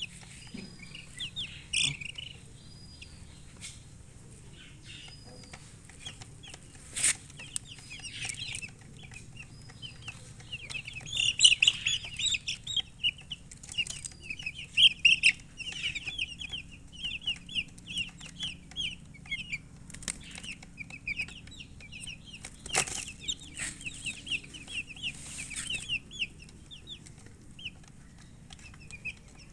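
Chickens chirping in rapid runs of short, high peeps, busiest in the middle, with a few sharp knocks in between.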